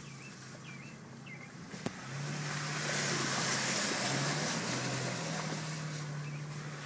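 2010 Nissan Xterra's 4.0-litre V6 engine running steadily at low speed, heard from inside the cab. A single sharp click comes just before two seconds in, after which a rushing hiss of tyres on the wet mud trail rises and holds.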